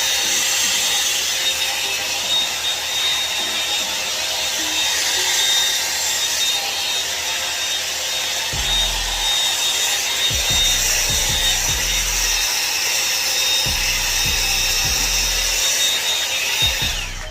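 Revlon One-Step hair dryer brush running steadily: a loud rush of air with a thin high motor whine, switched off shortly before the end.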